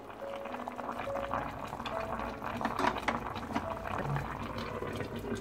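Andong jjimdak (chicken, vegetables and soy-sauce braising liquid) bubbling hard in an opened pot on high heat: a steady dense crackle of small bursting bubbles. It has reached the boil with steam rising, the point at which the heat is turned down to simmer.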